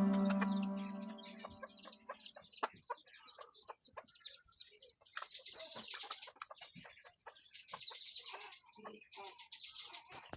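Chickens clucking while pecking at puffed rice: many short, irregular taps, with a faint high peeping throughout.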